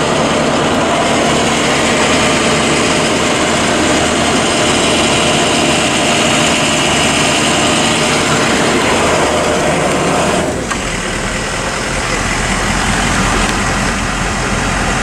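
Engine of a 2008 Ford F-450 ambulance idling, a steady hum. About ten seconds in, its low tone changes abruptly.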